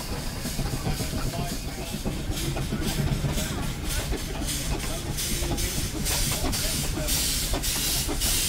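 Steam traction engine moving off under steam, its exhaust coming as a quick, even rhythm of hissing chuffs, about three a second, that grows stronger a couple of seconds in, over a low rumble.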